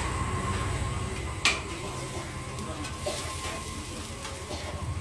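Metal spatula clinking and scraping on a large flat dosa griddle: one sharp clack about a second and a half in, then lighter taps, over a steady hum.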